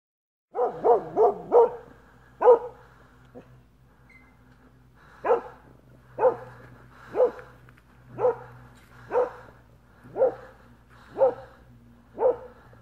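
A dog barking loudly at a wolf. A quick run of four barks and one more follows it, then after a pause it settles into single barks about once a second.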